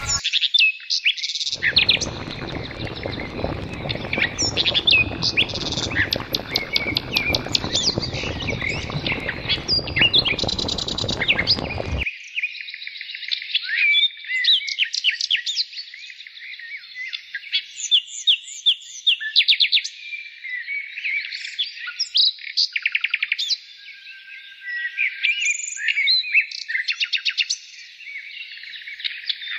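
Small birds chirping and twittering continuously, with quick trills of rapid repeated notes. Underneath, a steady rushing noise runs for the first twelve seconds or so and then cuts off abruptly.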